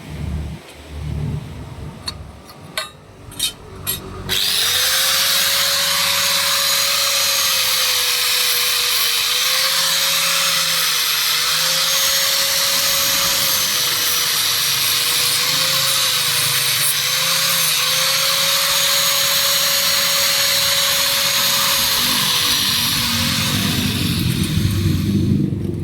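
A few clicks and knocks, then a handheld electric power tool runs steadily for about twenty seconds, its whine dipping briefly several times as if under load, and stops near the end.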